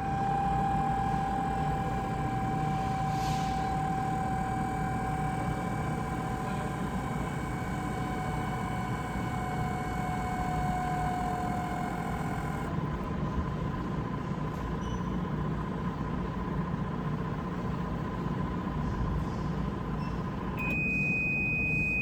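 Sharp R-21LVF commercial microwave running, its cooling fan motor making a steady hum with a loud whine that slowly sinks in pitch, the sign of a fan motor going bad. About halfway through the whine stops while the hum continues, and near the end the oven stops and gives a long, steady beep.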